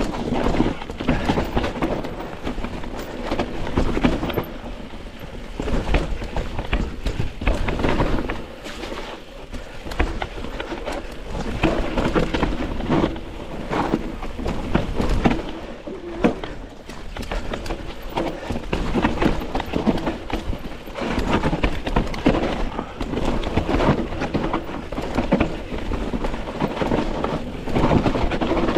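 Mountain bike descending a rough, loose dirt trail: tyres crunching over soil and rocks and the bike rattling and clattering irregularly, over a steady rumble of wind on the camera microphone.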